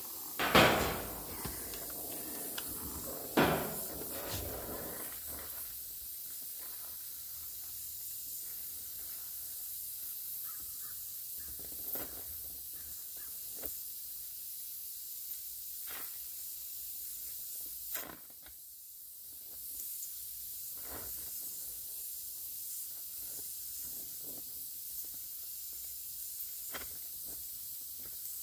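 Oxy-fuel gas welding torch hissing steadily as its flame heats a fitting on a sheet-metal tank, with two loud pops in the first few seconds and a few light clicks from the filler rod and metal. The hiss drops out briefly about two-thirds of the way through, then returns.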